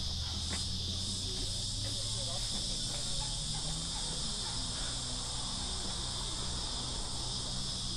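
A continuous high-pitched insect chorus, holding steady without a break.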